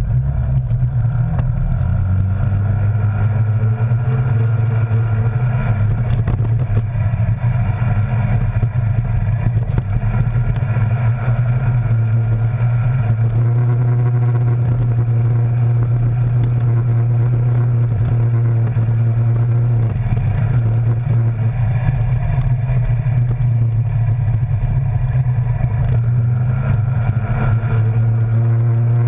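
Arctic Cat Wildcat Sport side-by-side's twin-cylinder engine running steadily under way on a dirt trail, heard from inside the cab. Its pitch rises about two seconds in and dips briefly a couple of times as the throttle eases.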